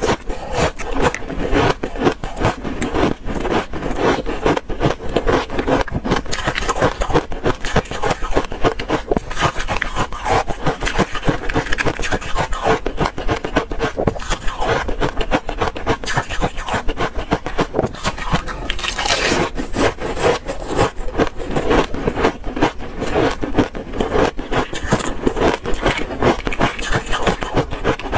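Thin ice flakes being chewed close to the microphone: a continuous run of many quick crunches and cracks.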